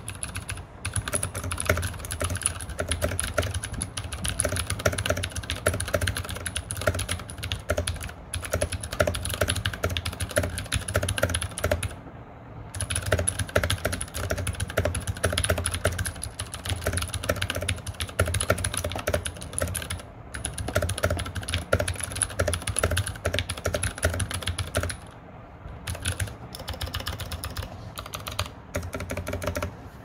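Mechanical keyboard being typed on fast and continuously, a dense run of keystrokes with a deep thock under a click. The typing breaks off briefly about twelve seconds in and again for about a second near 25 seconds, then resumes.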